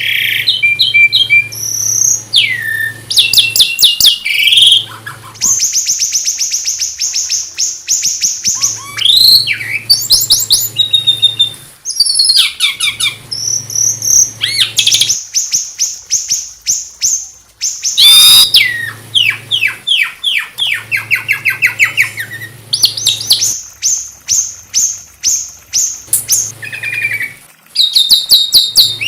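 Small songbird singing a fast, high-pitched song of trills, rattles and rapidly repeated sharp notes, in phrases a few seconds long with short breaks. A low steady hum runs under many of the phrases.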